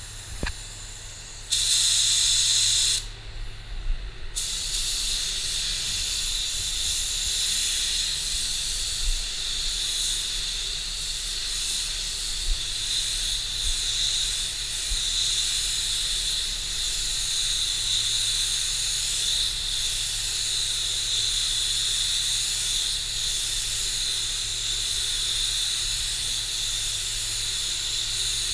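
Gravity-feed paint spray gun hissing with compressed air as it sprays clear coat. A brief, louder blast of air comes about a second and a half in and stops. From about four seconds in the hiss runs steadily, wavering slightly as the gun is moved.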